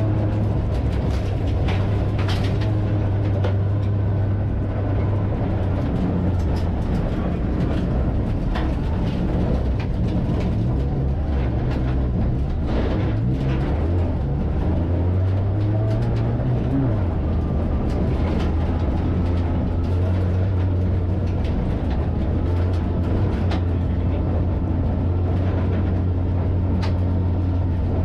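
In-car sound of a gravel-track race car: the engine runs with a steady low drone while loose stones tick against the body. Partway through the engine note drops and wavers as the car slows, then rises again as it accelerates away.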